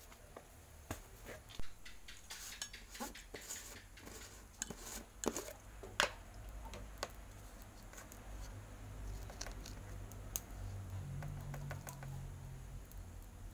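Plastic jars and lids being handled: scattered clicks, knocks and clatter as containers are moved and a screw-top lid is taken off, then a plastic spoon scraping and scooping in a plastic jar. From about eight seconds in the knocks give way to a low steady rumble.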